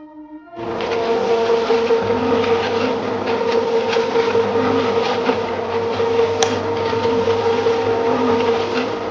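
A small motor starts suddenly and runs at a steady speed with a constant whine and a noisy mechanical rattle.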